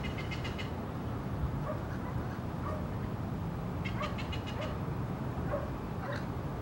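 Red-crowned amazon parrots calling: a rapid, rasping chatter near the start and again about four seconds in, with short squawks between, over a steady low background rumble.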